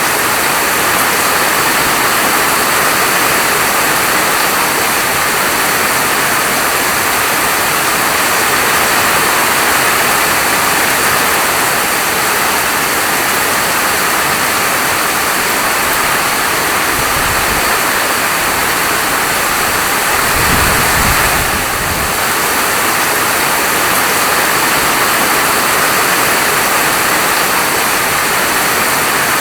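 Steady, dense hiss of heavy rain falling, with a brief low rumble about two-thirds of the way through.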